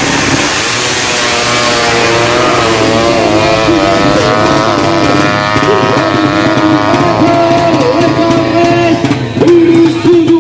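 Tuned Suzuki Satria FU drag-bike engine running at high revs, its pitch falling over the first few seconds as it comes off the throttle, then holding a wavering pitch.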